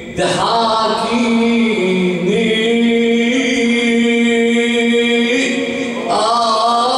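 A male cleric's solo chanted Shia mourning recitation for Ashura, sung into a microphone. He breaks briefly for breath at the start, then holds long drawn-out notes that step slightly up and down in pitch. A louder phrase begins about six seconds in.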